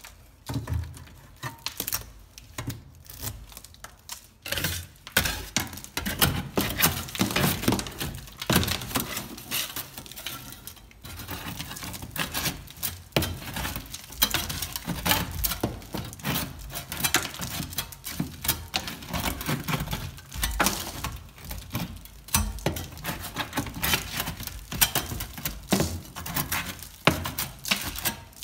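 Hand tool scraping and chipping crumbling plaster out of a crack, down to the wood lath. Irregular scrapes and clicks with bits of plaster falling, sparse at first and steady from about four seconds in.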